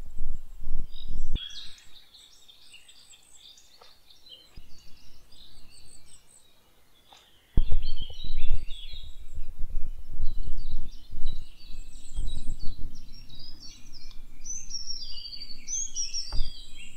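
Several songbirds singing and chirping in spring woodland, many short high phrases overlapping. Bursts of low rumbling noise on the microphone come and go, dropping away for a few seconds and then returning loudest from about eight seconds in.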